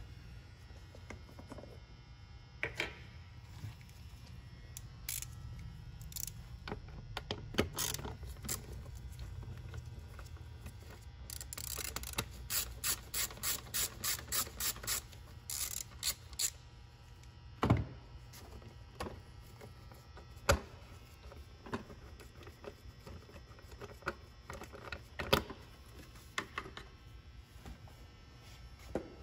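A ratchet with a T30 Torx bit clicking as the engine-cover fasteners are unscrewed, with an even run of about ten clicks a little under halfway through. Scattered sharp clicks and knocks come from the plastic engine cover being worked loose and unclipped.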